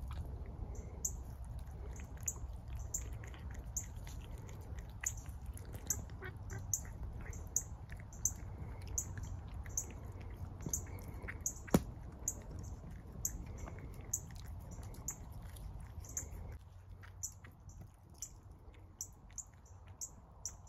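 A cat chewing flakes of cooked fish eaten from a hand, a quick run of short wet clicks, about two to three a second, with one sharper click about twelve seconds in. Under it a low rumble that stops a few seconds before the end.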